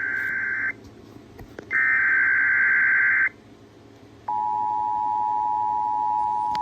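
Emergency Alert System signal: the end of one SAME header burst of warbling data tones, a second full burst about a second and a half long, then, about four seconds in, the steady two-tone attention signal starts, opening a child abduction emergency alert.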